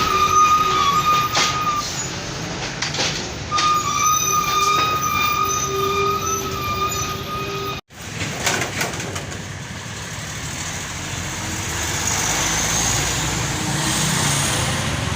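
Heavy road traffic with trucks: a held, high horn-like tone sounds twice in the first half. After a sudden cut, steady engine and tyre noise follows as vehicles pass.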